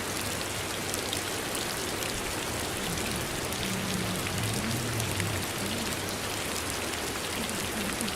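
Steady rain: a dense, even hiss of rain falling on a surface, with scattered sharper drop ticks.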